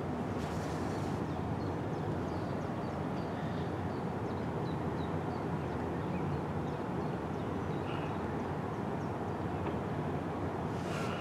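Steady low outdoor rumble with small birds chirping faintly above it, and a brief airy hiss about half a second in and again near the end.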